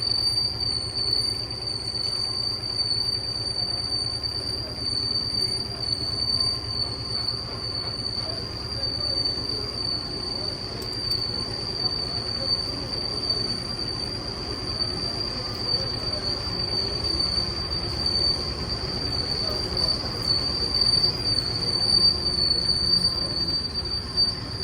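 Heavy boring machine cutting a steel pipe: a steady, high-pitched squeal from the cutting tool on the metal, over the low rumble of the machine running.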